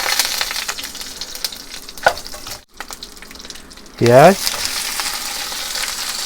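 Cumin and ground spices frying in hot oil in a pan, sizzling steadily. After a short break the sizzle carries on more evenly once onion goes into the pan.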